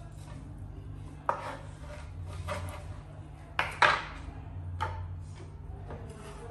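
Kitchen knife chopping through tough strips of cow skin (wele) on a wooden chopping board: a handful of irregular knocks of the blade hitting the board, the loudest a double knock about four seconds in, over a low steady hum.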